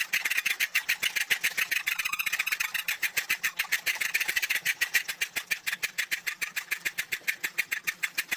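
Mechanical toy animals playing their instruments: a fast, even clatter of about nine clicks a second.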